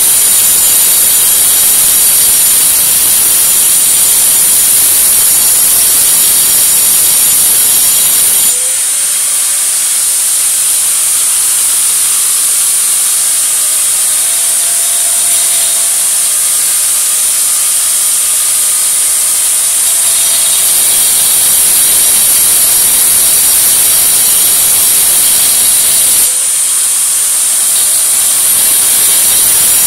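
Handheld electric power tool grinding into masonry, a loud steady hissing grind. About eight seconds in the low grinding drops away, leaving a fainter steady motor whine, and it comes back after about twelve seconds, with another short drop near the end.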